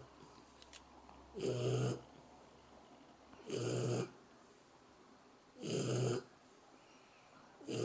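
Shar-pei puppy snoring in an even rhythm: a snore about every two seconds, each about half a second long, with three full snores and a fourth beginning at the very end.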